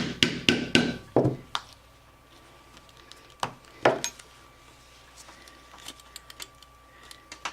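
A mallet tapping a punch through leather to make stitching holes: a quick run of sharp taps, then two louder single strikes a few seconds in, and faint clicks of the tools being handled.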